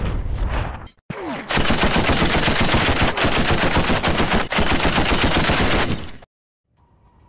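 Programme ident sound effects: a whoosh, then a loud burst of machine-gun fire lasting about four and a half seconds that cuts off suddenly, matching bullet holes punched into the show's logo wall.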